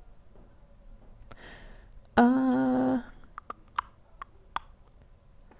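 A person humming a short, steady "mmm" about two seconds in, followed by a few faint clicks.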